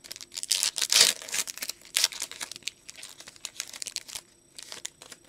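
Foil trading-card pack wrapper crinkling and tearing as it is ripped open by hand. It is loudest about a second in and again at two seconds, then fades to light rustling after about four seconds.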